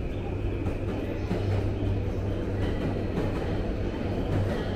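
Railway station ambience: a train's steady low rumble under an even wash of background noise.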